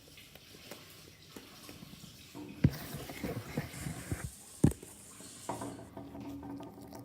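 Handling noises: scattered light clicks and rustles, with two sharp knocks about two seconds apart near the middle.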